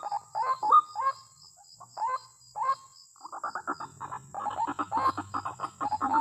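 White-breasted waterhen calls: evenly spaced notes about three a second at first, a few scattered notes, then from about three seconds in a fast, dense run of calls that keeps going.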